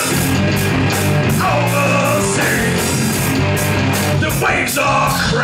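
Live heavy rock band playing loud and steady: electric bass, electric guitar and drum kit, with cymbals struck about four times a second.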